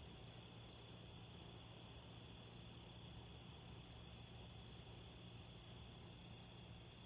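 Faint insects chirping at night, short chirps coming irregularly over a steady high hum and a low background hum.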